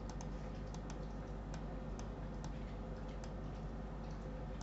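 Computer mouse left button clicking: a string of faint, sharp single clicks at uneven intervals, about two a second, over a low steady hum.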